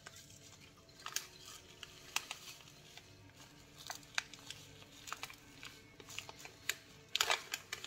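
Plastic sachet of instant cereal-drink powder crinkling as it is shaken and tapped to empty the powder into a mug, with scattered small crackles and a louder crinkle near the end.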